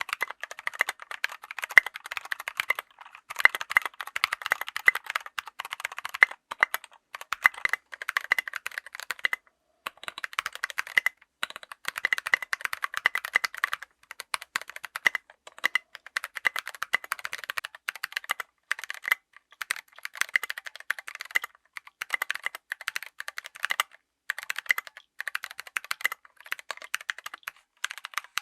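Mechanical keyboard with tactile switches being typed on quickly, in runs of rapid key clacks broken by short pauses.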